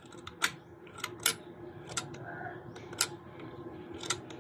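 Light metallic clicks and taps from an aluminium PCP air rifle being handled, irregular and a second or so apart, a few with a brief metallic ring, over a faint steady hum.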